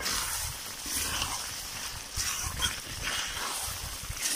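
Metal spatula stirring and scraping chicken liver and intestine around a metal kadhai, with irregular scraping strokes over the sizzling hiss of meat and masala frying down.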